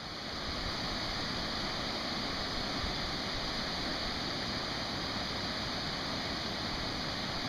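Steady rain falling, an even hiss that fades in over the first second and then holds without let-up.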